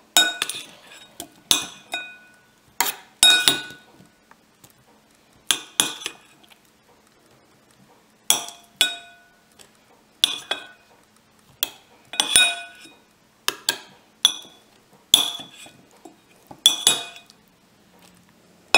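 Metal utensil clinking against a stainless steel mixer-grinder jar as mango pieces are put in: a run of sharp, ringing clinks, roughly one a second, with a short pause midway.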